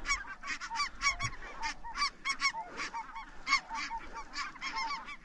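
A flock of Ross's geese calling overhead: many short, high, overlapping honks in a constant chatter.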